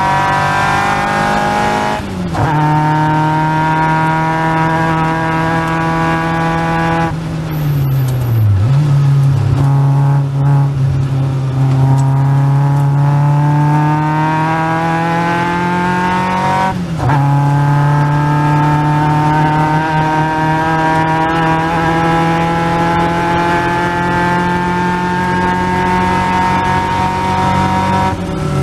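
Caterham Seven's 2.3-litre Ford Duratec four-cylinder engine running hard on track, heard from onboard, its pitch climbing steadily between gear changes. It upshifts about two seconds in, again a little past halfway and once more near the end. Around a quarter of the way through, it lifts and the pitch falls sharply for a braking downshift.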